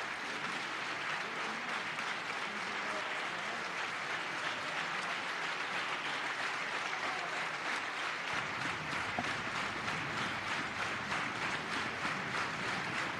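A large crowd applauding steadily, a dense sustained clatter of many hands clapping. A low rumble joins in about eight seconds in.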